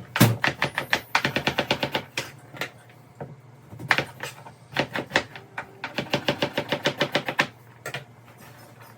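Knife chopping fast on a cutting board, in quick runs of strokes separated by short pauses.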